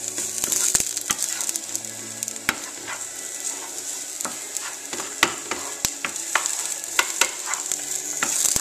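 Carrot sticks sizzling in a hot frying pan as they are stirred, with a steady high hiss and frequent sharp clicks and taps of the stirring utensil against the pan.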